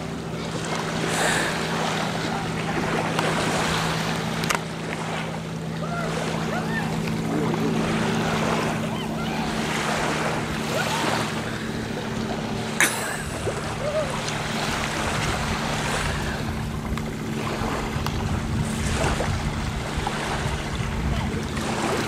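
Wind rushing on the microphone with lapping water and a steady low hum underneath; a single sharp click about thirteen seconds in.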